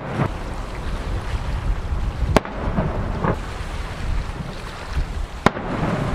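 Aerial firework shells bursting: two sharp bangs about three seconds apart, each followed by a rolling, rumbling echo.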